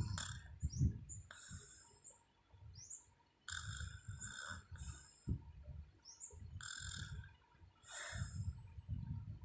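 A sleeping woman snoring with a low, uneven rumble that swells and fades every few seconds, while birds chirp and give short rising whistles over it.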